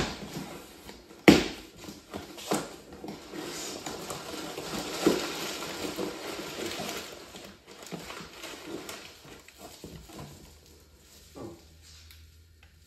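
A cardboard shipping box being opened: two sharp snaps of the box and tape at the start, then a few seconds of brown packing paper crinkling and rustling as it is pulled out. The rustling dies down to small handling sounds near the end.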